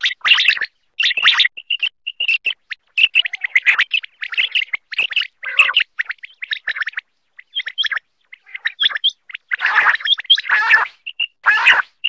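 Common quail calling: a rapid, irregular run of short high chirps, mixed with harsher, raspier calls, with a louder raspy stretch near the end.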